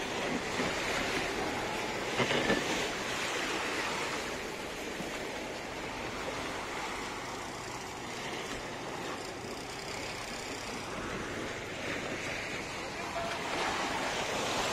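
Sea waves washing onto a pebble beach: a steady rush of surf that swells about two seconds in and again near the end.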